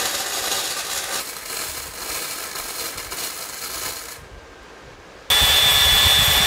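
Flux-core wire welder arc crackling during a weld for about four seconds, then stopping. About five seconds in, a power tool starts up and runs loudly with a steady high whine; this is the loudest sound.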